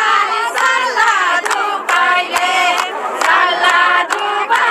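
Crowd of people singing and chanting together, many voices at once, with scattered hand claps.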